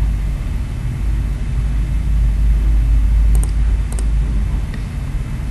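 Steady low background rumble with computer mouse clicks: two quick double clicks about three and a half and four seconds in.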